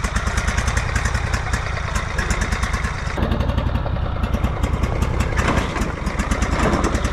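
Lawnmower engine running steadily with a fast, even firing beat; its tone changes about three seconds in.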